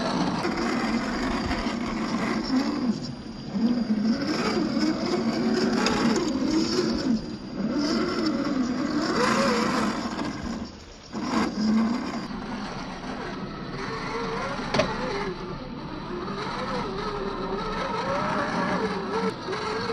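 Small electric motor and gear drivetrain of a 1/10-scale RC crawler whining as it drives over a trail, its pitch rising and falling with the throttle, over a gritty rustle of tyres on dirt. The whine cuts out briefly a few times as the throttle is let off.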